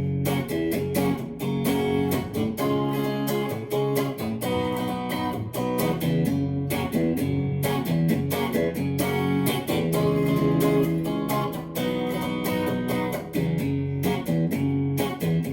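Instrumental guitar break in a song: guitar chords plucked and strummed in a steady rhythm, with no singing.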